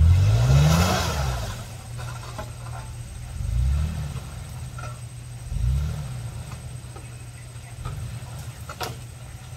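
Toyota FJ Cruiser's V6 engine revving up three times under load on a muddy climb: a rising surge at the start, another about three and a half seconds in, and a shorter one near six seconds, dropping back to a low, uneven running note between them.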